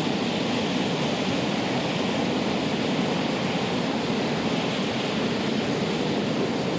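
Heavy surf breaking in strong wind: a steady, unbroken rush of waves.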